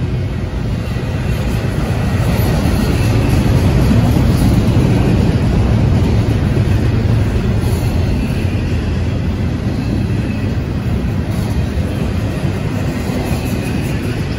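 CSX double-stack intermodal train's well cars rolling past: a steady rumble of steel wheels on the rails, swelling a little about four seconds in and easing slightly after.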